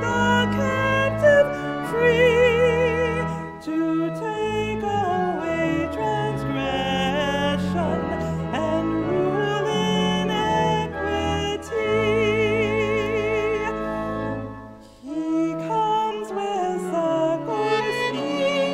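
Hymn sung by a female voice with vibrato, accompanied by violin and organ, the organ holding low sustained notes. The music thins briefly about fifteen seconds in before the next verse begins.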